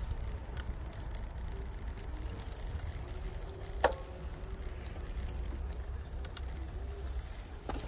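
Bicycle being ridden on a concrete path: a steady low rumble, with light mechanical clicks and rattles. One sharp click about four seconds in.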